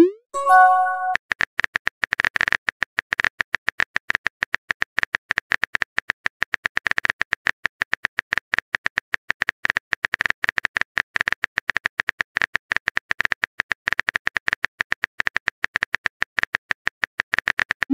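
Phone-keyboard typing clicks of a texting app in a rapid, uneven stream. It opens with a rising swoosh and a short chime as a message is sent.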